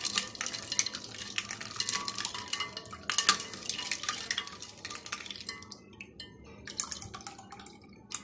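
Plastic ladle stirring an iced milky drink in a bowl: ice cubes clinking and the liquid sloshing in quick, busy strokes. After about five and a half seconds the stirring thins out to occasional clinks and drips.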